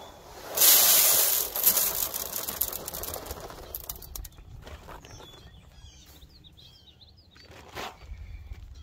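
Seed pouring from a bag into a planter's plastic seed hopper: a loud rushing hiss that starts about half a second in and tapers off over about three seconds. Birds chirp faintly afterwards.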